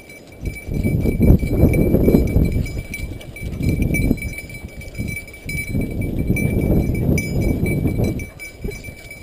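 Wind buffeting the camera microphone in uneven gusts, mixed with rustling through dry weeds and brush.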